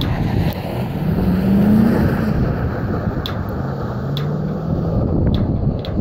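Wind rumbling on the microphone, with a motor vehicle's engine running in the distance. The engine revs up about a second in, then holds a steadier note later.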